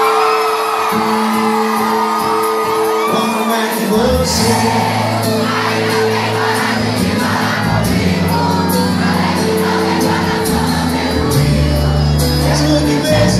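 Live forró band playing to a cheering crowd, with singing voices over held keyboard chords; about four seconds in the bass and a steady drum beat come in.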